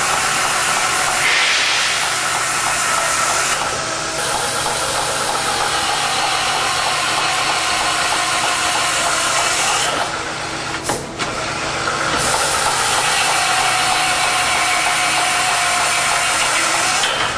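CNC beam drill line drilling 13/16-inch holes through 3/8-inch structural steel with an Ocean Penetrator drill bit: a steady cutting noise with a faint whine. About ten seconds in it drops off briefly with a sharp knock, as between holes, then drilling resumes.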